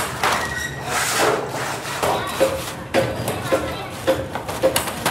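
Hammer blows on sheet metal: sharp strikes, each with a short metallic ring, coming about two a second from around halfway through.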